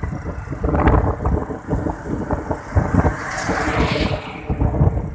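Wind buffeting the microphone over the low rumble of a vehicle on the move, with a hissing swell about three seconds in.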